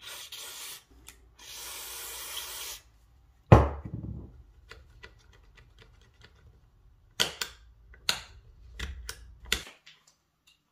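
WD-40 aerosol sprayed through its straw into a motorcycle handlebar switch housing, hissing in two bursts to flush out water and corrosion. Then a single loud knock, followed by a run of small clicks and a few sharper clicks as the plastic switch housing is handled.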